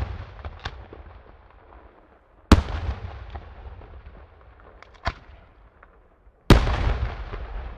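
Daytime fireworks shells bursting: two loud bangs, about 2.5 and 6.5 seconds in, with a smaller crack between them. Each bang is followed by a long rolling rumble of echo that fades away.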